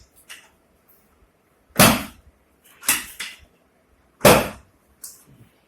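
Three sharp thumps about a second apart, made during a chiropractic ankle adjustment; the first and last are the loudest.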